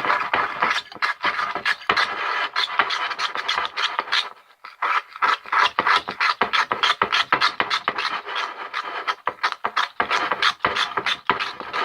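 Toothpaste-and-dish-soap slime being stirred vigorously in a container: fast, continuous scraping strokes with a brief pause about four and a half seconds in.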